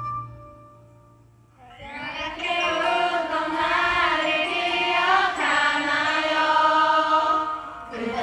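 Live rock band's held chord fades out in the first second, then after a short pause a slow melody is sung without accompaniment.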